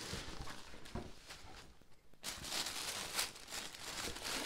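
A cardboard shoebox lid is handled, with a light knock about a second in. Then, from about two seconds in, tissue paper inside the box rustles and crinkles steadily as it is pulled open.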